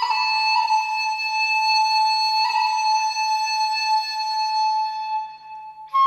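Slow melodic music led by a woodwind instrument, playing long held notes that step slightly in pitch. The last long note fades away and the music comes back loudly right at the end.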